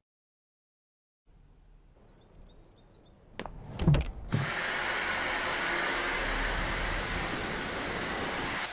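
Four short high beeps, a few clicks, then a vacuum cleaner motor starts about four and a half seconds in and runs steadily with a high whine over a rushing airflow.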